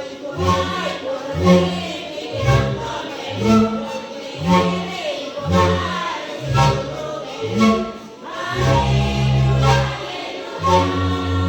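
A band song with several voices singing together over a bass line that moves to a new note about once a second. Near the end one low note is held longer.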